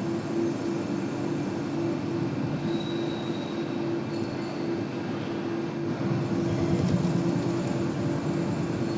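Mobile crane engines running steadily while hoisting a precast concrete girder segment: a constant mechanical rumble with a low hum, a little louder for the last few seconds.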